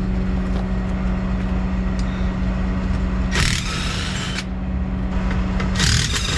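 Harbor Freight cordless impact wrench hammering at the U-joint strap bolts of a truck's drive shaft, in two bursts of about a second each, over a steady engine hum.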